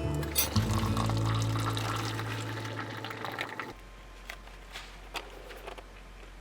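Background music with held low notes, fading down about halfway through to a faint steady low tone with a few soft clicks.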